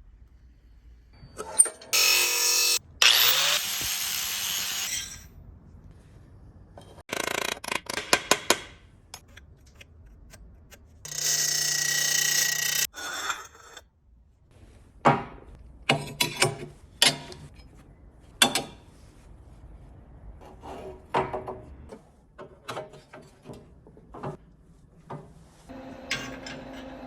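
Metalworking in short bursts: a power tool runs several times for a second or two, then comes a long string of short, sharp knocks.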